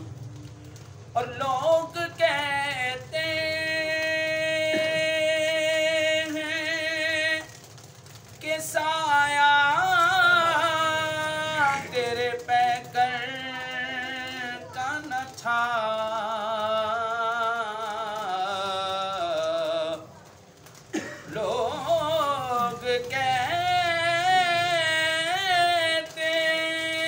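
A man singing an Urdu naat solo, drawing out long held notes with wavering melismatic ornaments, twice breaking off briefly.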